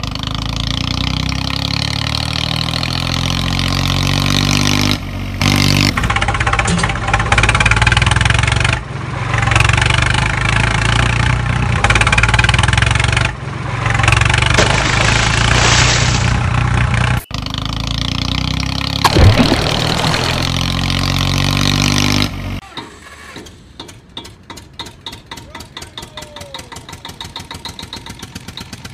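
Tractor engine sound running and revving loudly, shifting every few seconds, then dropping to a quieter idle with an even knock about four times a second for the last several seconds.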